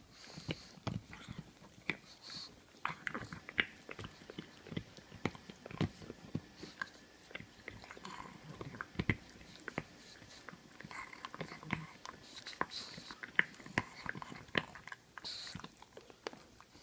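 A pug chewing and gnawing on a red chew held in its paws: irregular wet clicks and smacks of teeth, with a few short hissing breaths through the nose.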